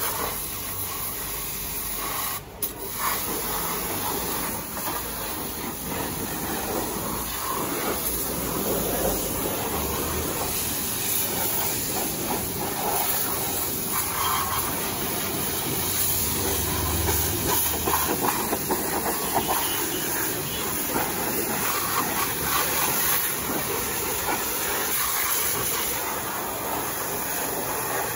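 Pressure washer jet spraying water onto a motorcycle's rear wheel and swingarm, a steady spray with one short break about two and a half seconds in.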